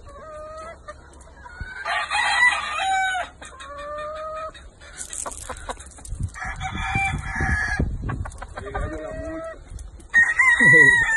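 Roosters crowing several times, with long crows about two, six and ten seconds in and shorter calls between them.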